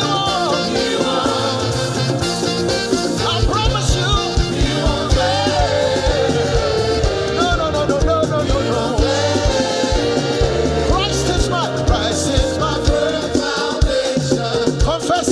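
Tungba-style Yoruba gospel music played without talking drum: voices sing over a steady, dense percussion beat.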